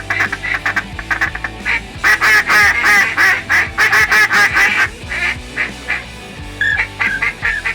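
A rapid series of duck quacks, densest and loudest from about two to five seconds in, with music underneath.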